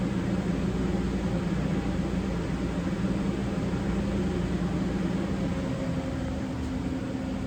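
Powered-up CNC vertical turret lathe humming steadily at standstill, a low drone with a steady noise over it; the low tone shifts slightly higher near the end.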